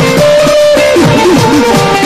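Harmonium playing a held melody over dholak drumming, the drum's bass strokes swooping up and down in pitch.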